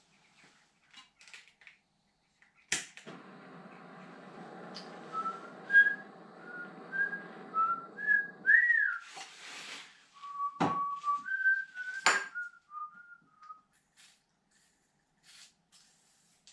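A person whistling a short tune, a string of brief notes stepping up and down. A steady whirring noise runs under the first part and cuts off suddenly about halfway through, and a few sharp metallic clicks ring out.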